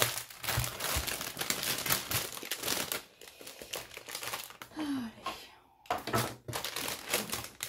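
Clear plastic bag holding small bags of diamond-painting drills crinkling as it is handled. The crinkling comes in dense stretches and thins out in the middle.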